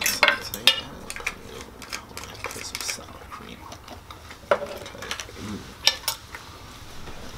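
Metal forks and knives clinking and scraping against ceramic dinner plates as steak and sides are cut and eaten. The sound comes as irregular sharp clicks, spaced from a fraction of a second to a second or more apart.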